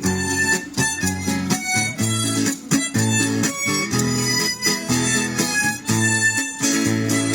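Harmonica playing a melody over acoustic guitar accompaniment strumming steady chords.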